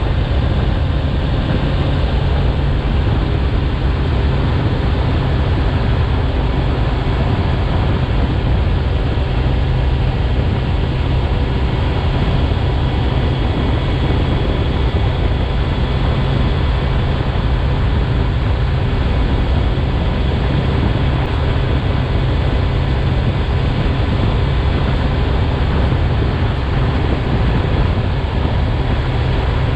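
Kawasaki Z900's inline-four engine, in its 35 kW A2-restricted form, running steadily under way, with a constant rush of wind and road noise.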